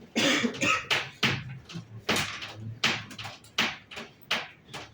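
Writing strokes: a quick series of short, sharp scratches, about two a second.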